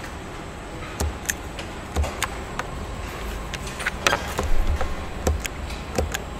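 Car assembly line noise: a steady low machinery hum with about a dozen irregular metallic clicks and clanks of tools and parts, some ringing briefly.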